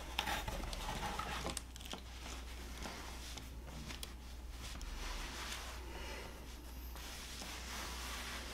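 Quiet room tone with a steady low hum, and a few faint clicks and rustles in the first second and a half as a hat is handled and put on.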